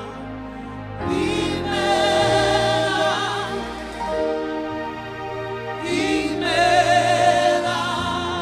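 Live gospel worship song: several singers hold long notes with heavy vibrato over a steady sustained low accompaniment. New sung phrases come in about a second in and again near six seconds.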